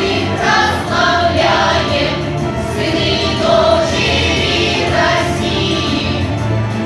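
Choir singing a song with instrumental accompaniment.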